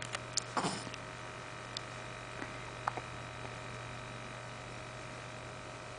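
A baby hiccuping: a short sharp hic about half a second in, then a few fainter clicks, over a steady low electrical hum.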